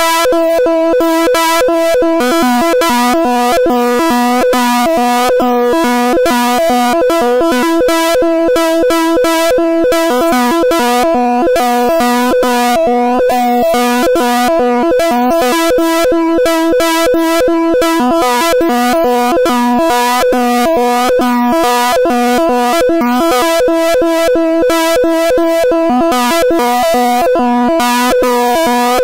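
Buzzy synthesized tones of a Python-generated stereo oscilloscope signal, the audio whose left and right channels draw a rotating wireframe cube in X-Y mode. It is a steady, chord-like drone of several held pitches with a fast flickering texture; the lowest tone fades for a stretch in the middle.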